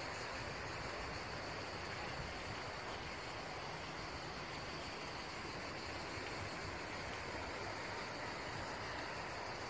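Steady outdoor garden ambience: an even low hiss with a faint, continuous high insect trill.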